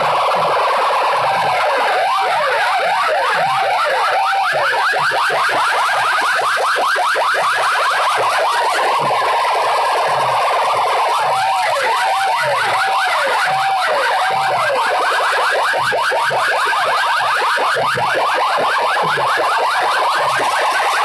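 Alarm-like electronic siren effect played loud through a bank of horn loudspeakers: fast repeating rising chirps, several a second, over a recurring rise-and-fall wail.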